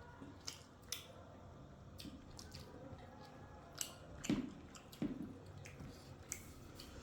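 Eating sounds from a meal of rice, pork and mustard greens: chewing and mouth noises with scattered short clicks and taps, the loudest about four and five seconds in.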